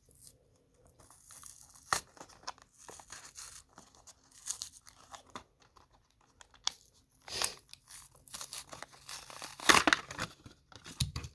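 Packaging of a boxed model race car being opened by hand: cardboard and packing tearing and crinkling in irregular rustles with a few sharp clicks, the loudest burst near the end.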